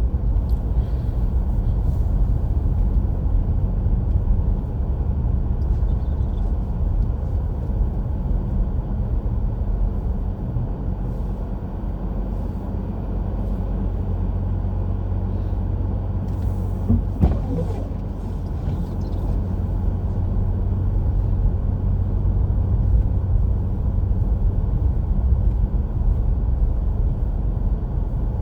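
Steady low drone of a car being driven, engine and tyre noise on a snowy road. A brief cluster of knocks comes about two-thirds of the way through.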